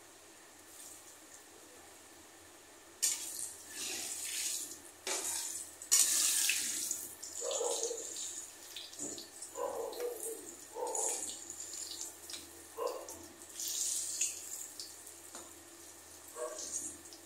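Slabs of steamed besan dough deep-frying in hot oil in a metal kadhai, sizzling. The sizzle is faint at first and grows loud about three seconds in as a slotted metal spoon turns the pieces, with scrapes and knocks of the spoon against the pan.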